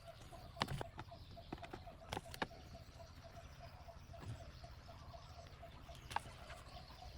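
Faint bird calling outdoors: a string of short, evenly repeated notes at about four a second, with a few soft clicks in between.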